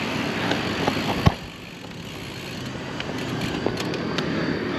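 Wind and road noise from riding a road bicycle, an even rush on the camera's microphone. A single sharp click comes about a second in, after which the rush drops lower.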